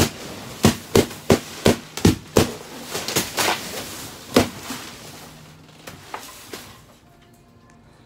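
Balloons popping one after another in quick succession, about ten sharp pops in the first few seconds, then a few fainter ones before they die away near the end.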